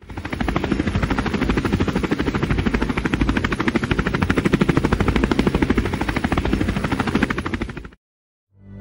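Helicopter rotor blades chopping in a fast, steady beat of thumps, fading out near the end.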